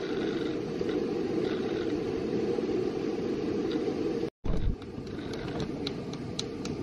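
Steady low rumbling noise with no speech, broken by a brief cut-out about four seconds in, after which a few faint high ticks come through.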